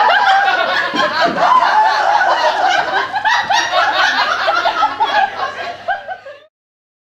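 A group of people laughing together, many voices at once, fading and then cutting off suddenly near the end.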